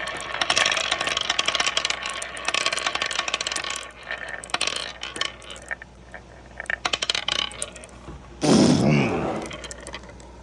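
Marbles rolling and clattering down a wooden wave-course marble run, a dense run of clicks that thins to scattered clicks after about four seconds. Near the end comes a loud clatter with a ringing tone that falls in pitch and fades.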